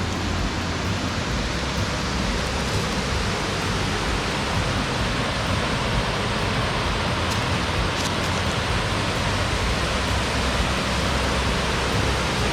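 Waterfall rushing, a steady, even wash of falling water with no let-up.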